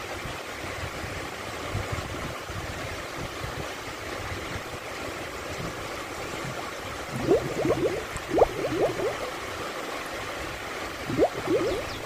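Small waves washing in over shallow water at the sandy shoreline in a steady rush, with bursts of gurgling and lapping about seven seconds in and again near the end.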